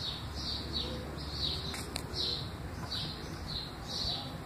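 A bird chirping over and over in the background: short falling chirps, about two or three a second. A couple of light clicks come about two seconds in.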